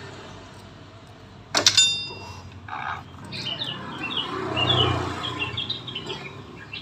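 A sharp metallic clink with a brief ring about one and a half seconds in, from a socket wrench knocking against metal on a scooter's engine. Then birds chirp over a low hum that swells for a moment.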